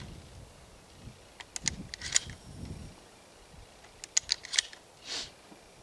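Sharp metallic clicks in two quick clusters, with a short sliding hiss near the end: shotgun shells being pushed one after another into the tube magazine of a semi-automatic tactical shotgun.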